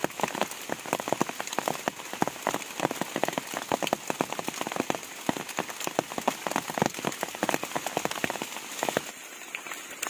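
Rain pattering on wet forest leaves and litter, a dense, irregular ticking that cuts off about nine seconds in.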